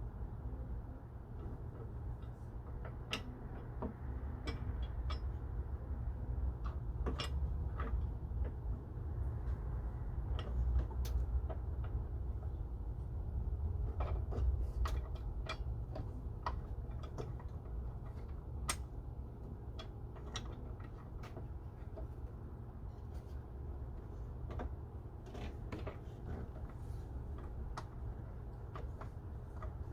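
Scattered light clicks and taps of hand tools and bolts being worked while fitting a hood hinge, over a steady low rumble.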